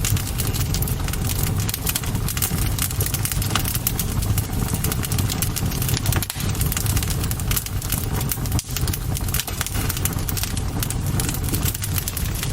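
Campfire burning, with a dense, continuous crackle of sharp pops and snaps over a steady low rumble.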